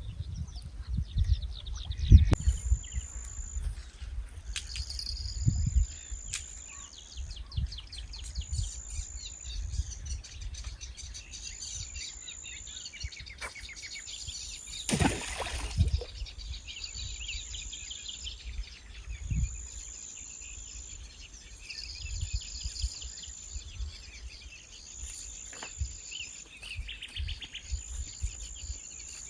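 Birds chirping and calling, over a high trill that repeats in phrases of about a second every couple of seconds. Low rumbles and thumps come and go, and a brief rushing noise sounds about halfway through.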